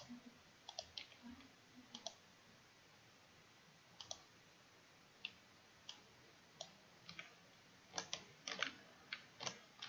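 Faint computer mouse clicks, about a dozen at irregular intervals, some in quick pairs, as items are picked one at a time on screen.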